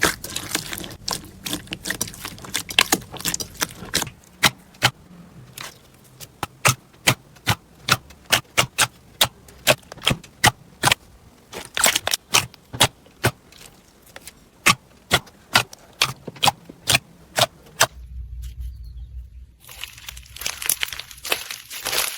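Slime being pressed and stretched by hand, giving a run of sharp crackling pops at two to three a second. Near the end the pops give way to a short low rumble and then a denser crackling.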